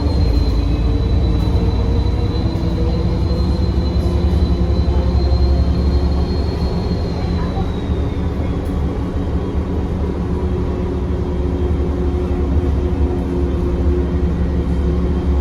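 Bus diesel engine running, heard from inside the bus, with a thin high turbo whistle that sinks a little and fades away about eight seconds in.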